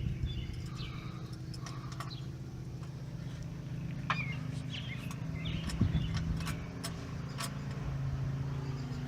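Scattered clinks and taps of metal hand tools, as sockets are tried on a stuck bolt, over a steady low mechanical hum, with a few short high chirps.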